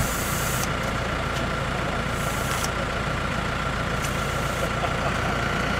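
Off-road vehicle's engine running steadily, with a constant thin high whine over it.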